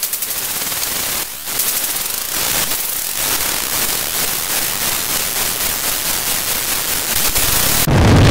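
Loud static hiss from an edited glitch-style noise effect. It stutters in rapid pulses at first, dips briefly about a second in, and then holds steady. About eight seconds in it cuts over to a louder, deeper rumble.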